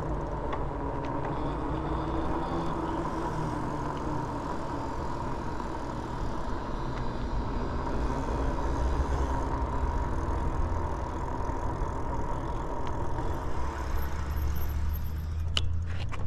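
Rad Rover fat-tyre e-bike rolling slowly on asphalt under pedal assist: a steady whine from its 750 W rear hub motor over tyre noise and a low rumble. A few sharp clicks come near the end.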